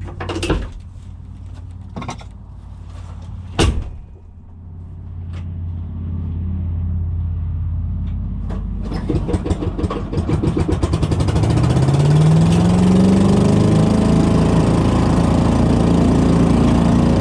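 An engine cranks and catches about nine seconds in, then rises in pitch as it comes up to speed and runs steadily. Before it starts there is a low hum and three sharp knocks.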